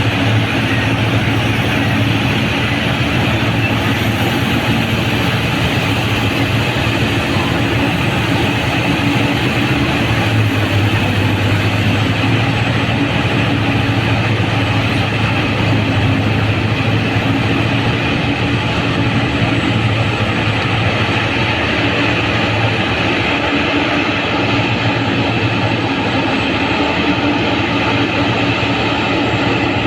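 Large hydraulic mining excavator's diesel engine running steadily with a low hum, loud and unbroken throughout.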